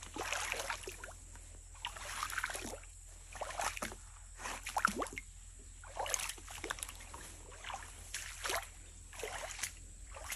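Feet in flip-flops wading through a shallow stream, water sloshing with each step, one slosh every second or two.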